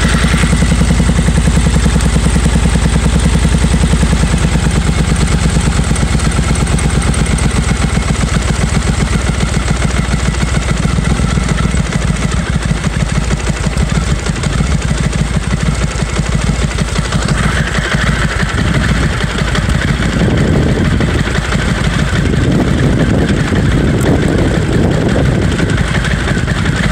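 Suzuki Marauder V-twin motorcycle engine idling with a steady pulsing beat while its carburettor is being adjusted; the engine note picks up and fills out about two-thirds of the way through.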